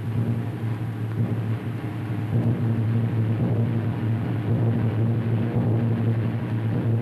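A low, steady rumbling note from the opening of an orchestral film score, swelling a little over the first few seconds, under the hiss of an old 1930s optical soundtrack.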